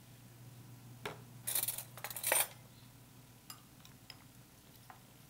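A metal spoon clinking and scraping against a small ceramic bowl while sliced red onion is stirred into vinegar. There is one click about a second in, then two short flurries of clinks close together, then a few light ticks.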